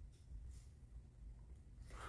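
Near silence: room tone with a faint low hum, and a faint rustle of a paper manual being handled about half a second in.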